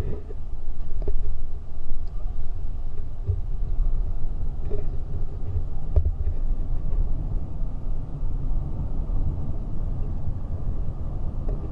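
Steady low rumble of a car driving at motorway speed, heard from inside the cabin: engine and tyre noise with a few faint clicks.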